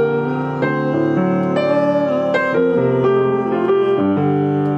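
Piano playing a slow sequence of sustained chords over a low bass line, a new chord or note struck about every half second.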